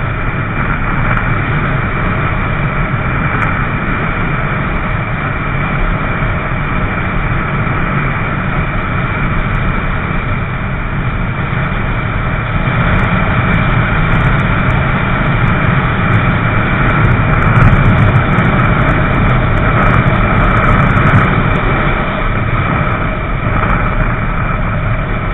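Motorcycle running on the road: a steady engine drone mixed with a heavy low rumble of wind on the microphone, swelling a little in the middle.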